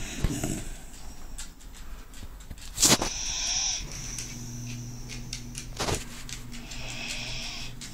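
Beagle snoring with noisy breaths, two of them about four seconds apart. Two sharp knocks come about three and six seconds in, the first the loudest sound.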